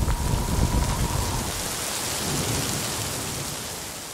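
Heavy rain pouring down on a sailing yacht at sea: a steady hiss with low rumbling underneath early on, fading out toward the end.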